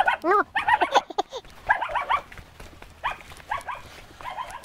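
A dog barking in quick runs of short, high yaps, about five runs of several barks each.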